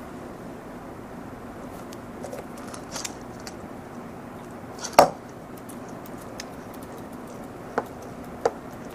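Scattered clicks and taps of typing on a laptop keyboard over a steady room hum, with one louder knock about five seconds in and two sharper clicks near the end.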